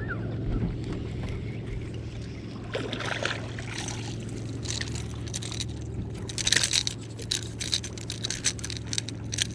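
Steady low hum of a bass boat's electric trolling motor, with irregular sharp clicks and splashes of water against the boat from about three seconds in, thickest near the end.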